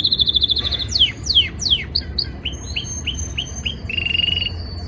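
Male canary singing its breeding-season courtship song: a fast trill, then three steep downward-sweeping whistles about a second in, a string of short notes, and a new steady trill near the end.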